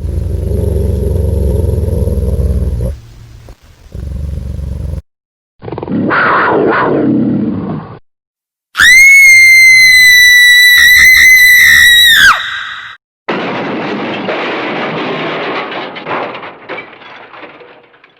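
A string of loud sound clips cut together abruptly. First a low rumbling roar, then a rushing, sweeping noise, then a shrill steady tone that rises in quickly, holds for about three and a half seconds and drops away. A hissing noise follows.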